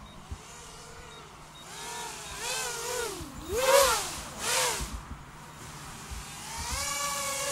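FPV racing quadcopter's small electric motors whining, the pitch swooping up and down as the throttle changes. It comes in louder about two seconds in, is loudest in two quick swoops around the middle, and holds a steadier whine near the end.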